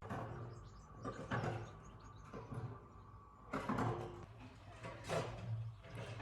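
Sheep and lambs bleating in a field, about five separate calls spread over a few seconds.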